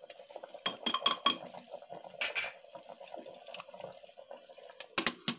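A spoon stirring chicken gravy in a metal pressure cooker pot, clinking against the side of the pot several times, over the faint bubbling of the gravy boiling down. A few sharper clinks near the end.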